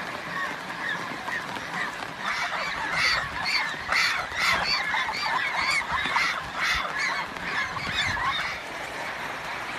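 A flock of white domestic geese honking, many calls overlapping. The calls start about two seconds in, are densest a few seconds later, and die down near the end.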